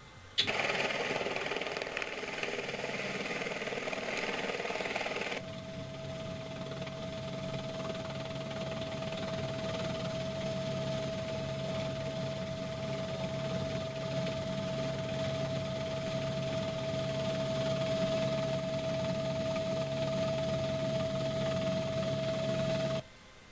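Machinery running steadily: a motor or fan noise that starts abruptly. About five seconds in it changes to a steady high whine over a low hum, and it cuts off suddenly near the end.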